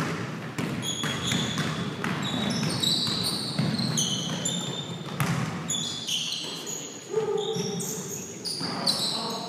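A basketball bouncing on a hardwood gym floor during play, many scattered thuds, with many short high squeaks from sneakers on the court.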